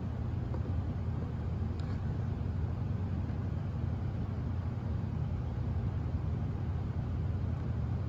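A steady low machine hum, even throughout, with no distinct events.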